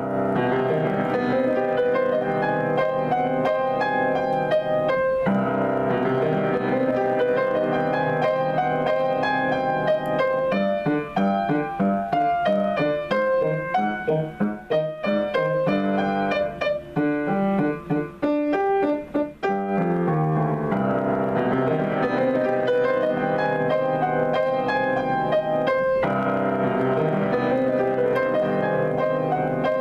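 Solo acoustic piano played with full, sustained chords. Around the middle there is a stretch of more separated, detached notes, then the full sustained playing returns.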